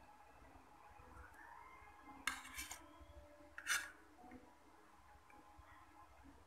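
Metal spoon scraping and clinking against a plate as rice is scooped up: three short strokes between about two and four seconds in, the last the loudest.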